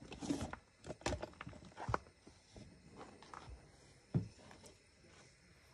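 A few irregular soft knocks and handling noises, the loudest a dull thump about four seconds in.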